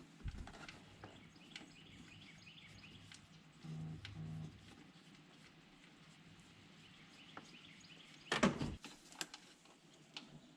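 Scattered light clicks and knocks of hand tools and metal parts while the new idler pulley is fitted on the engine's belt drive. About eight and a half seconds in there is a louder, brief clatter, and around four seconds in two short low hums.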